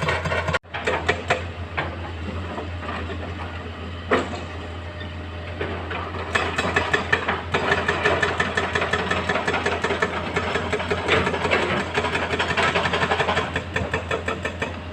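Heavy diesel engine of earthmoving machinery running steadily, with rapid rattling and clatter over it. The sound cuts out briefly about half a second in.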